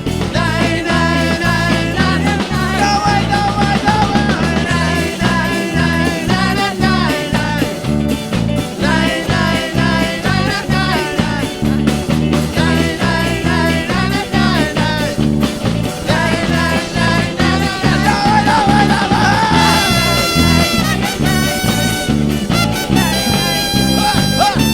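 Upbeat worship-band music with a steady bouncing bass beat and a melody line; a bright tone with many overtones comes in near the end.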